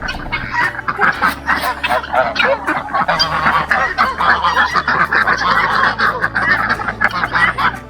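Flock of farm geese honking, with other poultry calling among them: many overlapping calls without a break.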